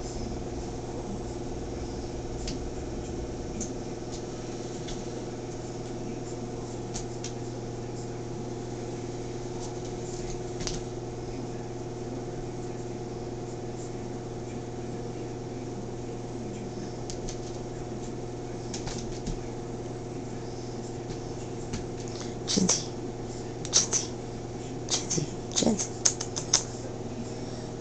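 Cats' paws and claws skittering and scrabbling on a hard tiled floor in quick clusters of sharp clicks and scrapes near the end, as they chase a laser dot. A steady low hum runs under it throughout.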